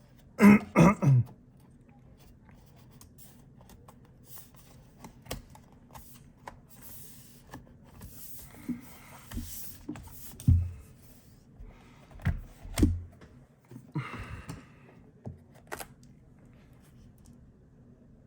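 Handling noise from reassembling a MacBook Pro: scattered light clicks and taps and a few dull knocks as the aluminium bottom case and small tools are moved and set down, with a short louder sound right at the start.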